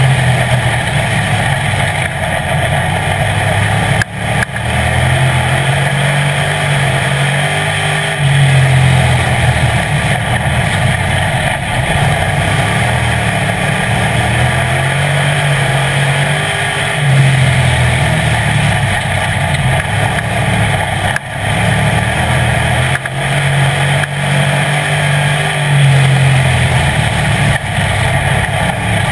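Street stock race car's engine heard from inside the cockpit at racing speed, its pitch climbing under throttle and dropping off again in a repeating cycle every few seconds as the car goes around the oval, over a constant rush of wind and track noise.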